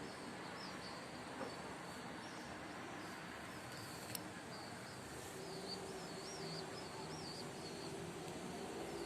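Faint outdoor night ambience: a steady low wash of distant noise with a run of small high chirps, and one sharp click about four seconds in.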